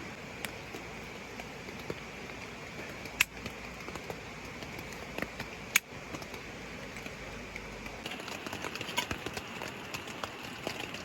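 Rain at a forest campsite: a steady rush of a mountain stream with raindrops falling in scattered taps, two sharper ones about three and six seconds in, and the drops coming faster near the end.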